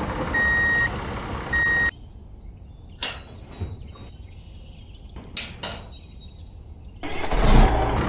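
Vehicle reversing beeps, one beep about every second, over steady engine noise. The beeps stop about two seconds in. Then a few light metallic clicks come from a small metal chain and hook being fastened between toy tractors, and engine noise starts again near the end.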